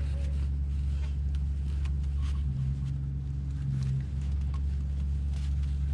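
A steady low motor hum, with faint clicks and taps of parts being handled over it.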